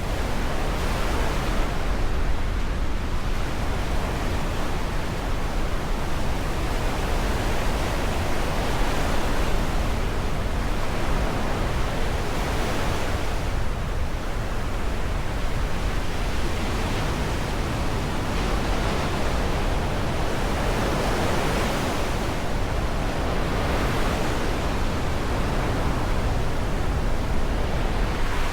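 Black Sea waves breaking on the shore, a continuous wash of surf that swells and eases every few seconds, over a steady low rumble.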